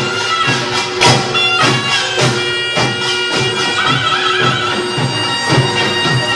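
Korean pungmul band music: drums and small gongs striking a quick steady beat under a held, nasal reed-pipe melody of the kind played by the taepyeongso.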